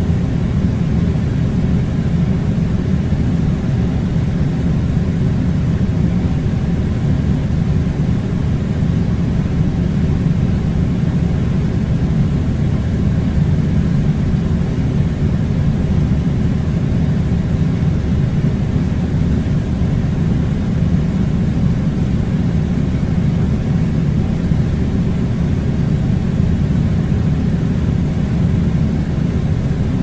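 Air conditioner blowing: a steady, low rushing rumble of air that does not change.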